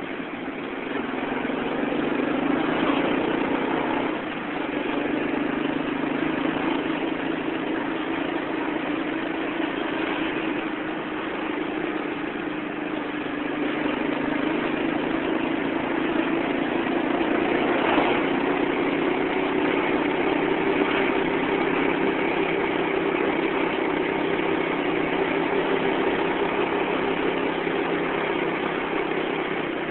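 Motorcycle engine running under way, its pitch rising and falling with the throttle, over a steady rush of wind and traffic noise.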